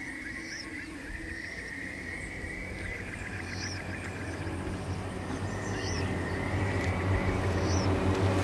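Tropical forest ambience: a bird repeats a short rising call about once a second over a steady high drone. A low hum grows steadily louder toward the end.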